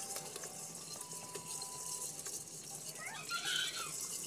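Light rustling and small clicks of live crabs and small fish being picked by hand from a hand net into a pot, with faint voices in the background about three seconds in.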